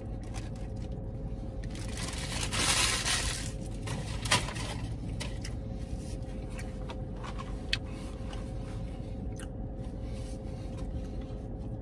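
Eating a fast-food sandwich from a paper wrapper: the wrapper rustles and crinkles for about a second and a half starting two seconds in, with a sharp click soon after and soft crunching and small clicks of chewing, over the steady hum of a car interior.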